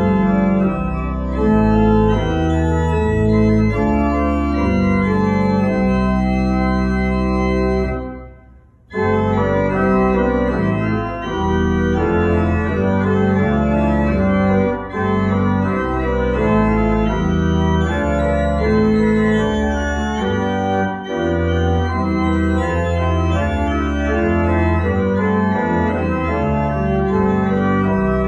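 Church organ playing full sustained chords over deep pedal bass notes, with a brief break about eight seconds in before the music resumes.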